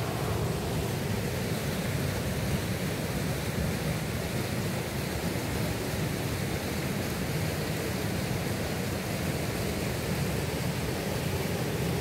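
Mountain stream rushing steadily over rock slabs and down a small cascade, a continuous even rush of water.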